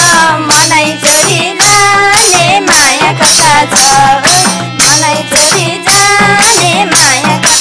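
Nepali dohori folk music: a harmonium melody over a madal drum beat of about two strokes a second, with hand clapping and voices gliding through the tune.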